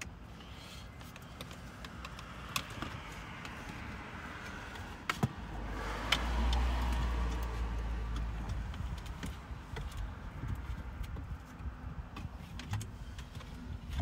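Hands working the plastic lower dash trim panel of a 5th-gen Toyota 4Runner around a newly fitted switch: a few sharp plastic clicks and rustling, with a low rumble for a few seconds in the middle.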